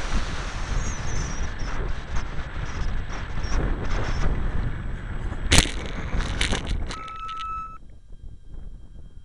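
Wind buffeting the onboard camera of a ParkZone T-28 Trojan electric foam RC plane as it flies low, with a thin high motor whine early on. About halfway through there is one loud impact as the plane crashes into the grass, then a few smaller knocks as it tumbles, a short steady tone, and quiet.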